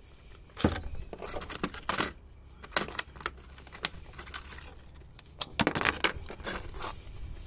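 Thin clear plastic takeout salad container and lid being handled: scattered sharp clicks and crinkles of the plastic.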